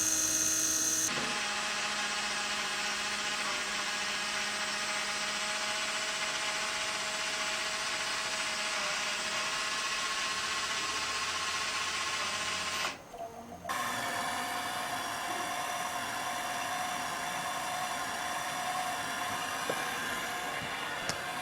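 Small fischertechnik electric motors and plastic gearing whirring steadily as the model dredger works. The sound shifts about a second in, cuts out briefly about 13 seconds in, then runs again at a different pitch.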